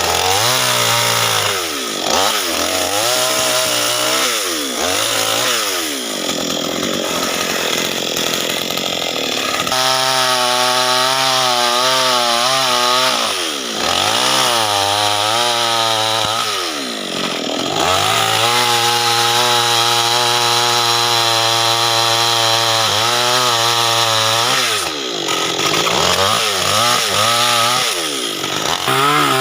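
Two-stroke chainsaw cutting acacia wood, its engine revving up and dropping back over and over, and holding a steady high-speed pitch for several seconds at a time.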